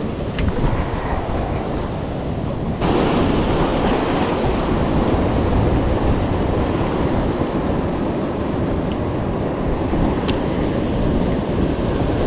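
Sea surf washing in, with wind on the microphone; it gets louder about three seconds in and then holds steady.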